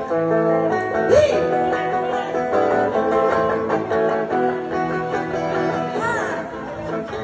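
Live song intro: electric guitar over a steady band backing, with no singing yet. A couple of short notes bend up and down in pitch, about a second in and again near six seconds.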